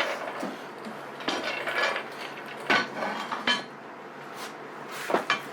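Metal parts clanking and clinking as they are handled, several sharp knocks with short ringing at uneven intervals.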